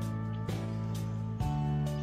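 Background music of sustained chords with a light beat about every half second, moving to a new chord about one and a half seconds in.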